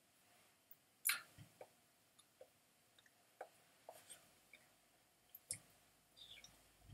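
Near-silent room with scattered faint clicks and soft rustles from a person signing: mouth clicks and hands brushing against clothing, with one short louder rustle about a second in.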